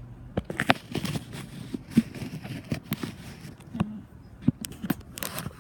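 Irregular clicks, knocks and rustling: handling noise of a hand-held camera while moving about.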